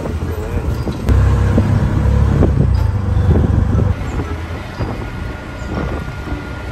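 Auto-rickshaw (tuk-tuk) engine running while driving, heard from inside the open passenger cabin. The low rumble grows louder about a second in and eases off about four seconds in.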